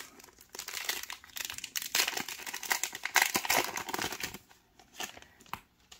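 Foil wrapper of a 2021 WNBA Prizm trading-card pack being torn open and crinkled by hand: a dense crackle that starts about half a second in and dies away near the end.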